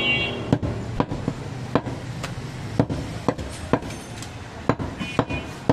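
Butcher's cleaver chopping goat meat on a wooden chopping block: sharp, separate chops, roughly two a second.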